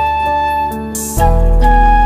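Background instrumental music: a melody of long held notes over a sustained low bass. About a second in there is a brief hiss, and the music comes back in louder.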